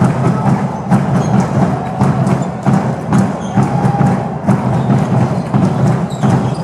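Music with a steady percussion beat of evenly spaced knocks, about two a second.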